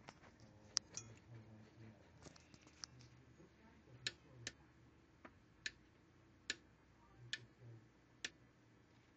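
About nine sharp clicks at uneven spacing, roughly one a second, the loudest about a second in, over a faint low hum.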